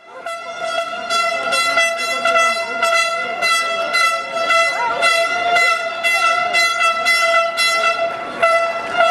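A horn held on one steady, unbroken note, starting abruptly, over a regular beat of about two to three strokes a second. Voices shout in the crowd, more near the end.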